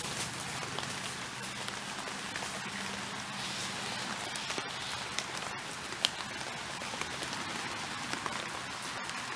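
Steady rain falling, with many small close drops ticking and one sharper tick about six seconds in.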